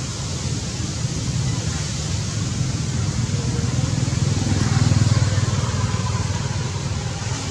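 Steady outdoor background noise with a low rumble that swells about halfway through and then eases off.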